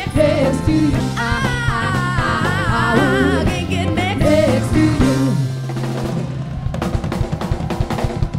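Live 70s-style soul band: female voices sing long, wavering notes over a steady bass line and drum kit. About five seconds in the singing stops and the drums break into a fast roll of hits with cymbals.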